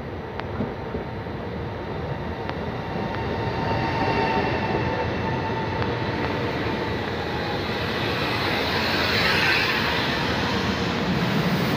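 Alstom Coradia Jazz electric multiple unit pulling in alongside the platform, growing louder as it draws level. Its running noise carries a faint steady whine, with a hiss near the end.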